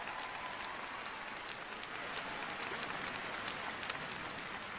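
Audience in an ice arena applauding, a steady patter of many hands with single sharp claps standing out.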